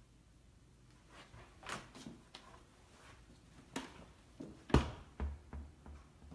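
Scattered light knocks and clicks as someone moves about a small room, with one heavier thump a little before the end.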